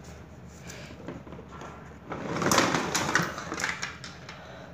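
A cardboard box being opened and plastic toy blaster parts sliding out and knocking together: a scraping, rustling clatter lasting about two seconds, starting about two seconds in.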